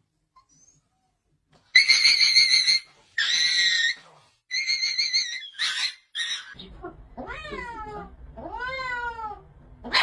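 A cat meowing several times: three short, high, steady cries, then longer meows that rise and fall in pitch.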